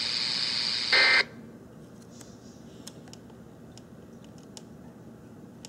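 WeatherX RWB8817DT weather radio's speaker hissing with reception static, then a short, loud burst of data tones about a second in, which is the SAME end-of-message code closing the weekly test. The audio then cuts off suddenly. What follows is a quiet room with a few faint clicks from the radio's top buttons being pressed.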